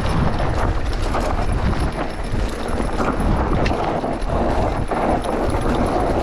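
Mountain bike rolling down a dry, loose dirt singletrack: tyres crunching over the dirt and the bike rattling over bumps in an irregular run of knocks.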